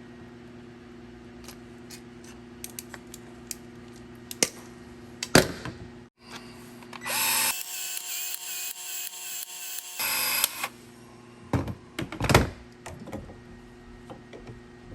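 Plumbing work: sharp knocks and clanks of hand tools on pipes and fittings, with a power tool running for about two and a half seconds in the middle, over a steady low hum.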